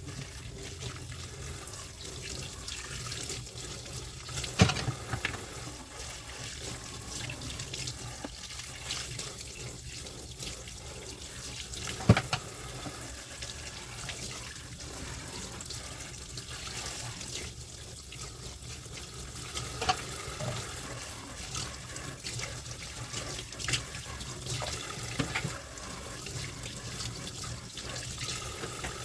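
Kitchen sink tap running steadily while dishes are washed, with a few sharp clinks of dishware, the loudest about four and a half and twelve seconds in.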